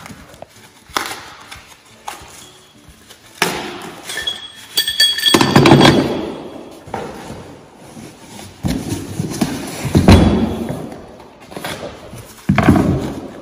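Cardboard and packing paper rustling and crumpling as tube bender parts are unpacked, with steel parts knocking and clinking together. A ringing metallic clink comes about four to five seconds in.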